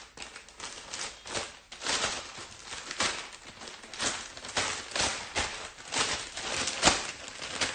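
Hands tearing and pulling at the wrapping of a small package that is hard to get open: a run of irregular rustles, scratches and crackles, with a sharper snap near the end.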